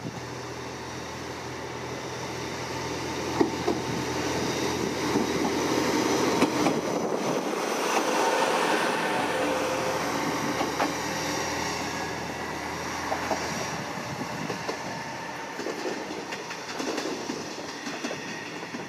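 Kanto Railway Joso Line diesel railcar pulling out of the station, its engine running under power and its wheels clicking over rail joints. The sound grows to its loudest about eight seconds in, then slowly fades as the train moves off.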